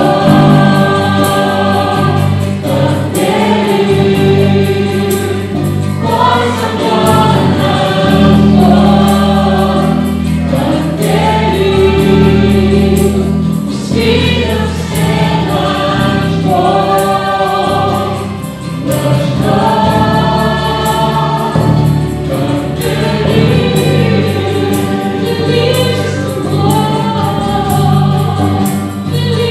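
Live Christian worship song: a mixed group of male and female singers on microphones singing together, accompanied by acoustic guitar, electric bass and keyboard.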